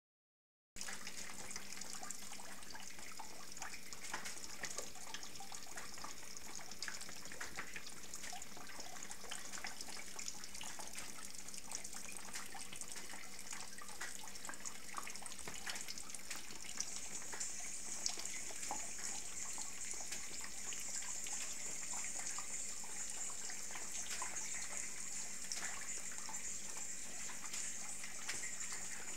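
Rainwater leaking through a window's roller-shutter housing, dripping and trickling steadily into a bucket below, with many small drip ticks over a constant watery hiss. The hiss grows brighter about halfway through.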